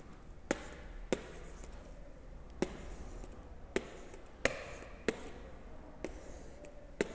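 Light, sharp taps of a stylus on a tablet's writing surface as digits are written by hand, about eight taps at irregular intervals.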